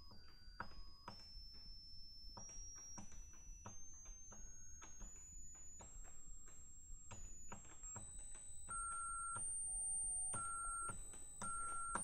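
High sine test tone from a Lindos MS20 oscillator, recorded through a Zoom H4n, stepping up in pitch every half second or so with a small click at each step. Weaker lower tones pop in and out at unrelated pitches, suddenly jumping to a totally different tone: intermodulation distortion in the H4n.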